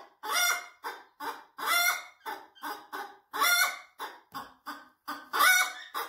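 A hen cackling: a run of short clucks broken by a longer, louder squawk about every one and a half to two seconds, the loudest squawk near the end.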